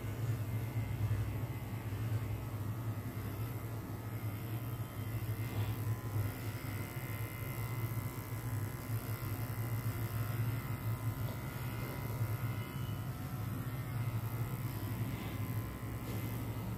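Electric pet hair clipper running with a steady low buzz as it is worked through a dog's fur.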